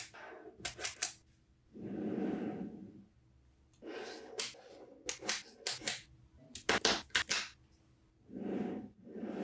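Small magnetic balls snapping together in sharp clicks, in quick groups of two to four, with a few softer noises about a second long in between.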